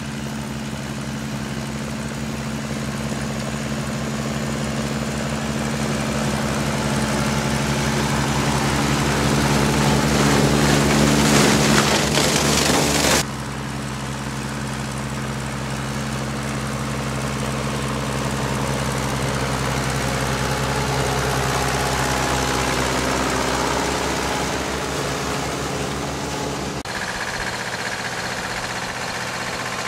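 Tractor engines running steadily as they pull sugar beet harvesters through the field. The engine grows louder for about twelve seconds as a tractor draws near, then cuts abruptly to a quieter engine, and the sound changes again a few seconds before the end.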